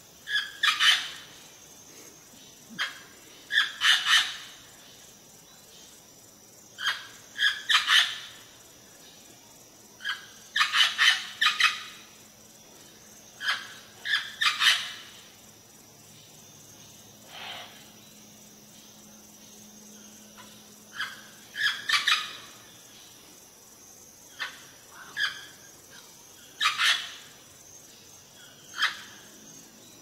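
Green Amazon parrot giving loud, short calls, singly or in quick runs of two to four, every couple of seconds.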